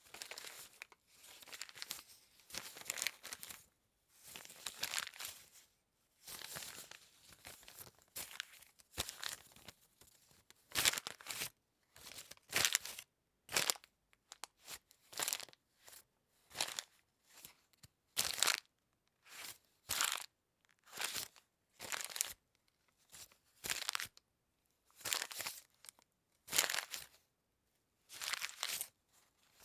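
Paper being crumpled and crunched by hand in a series of crackling bursts, longer squeezes at first, then shorter separate crunches about once a second with brief pauses between.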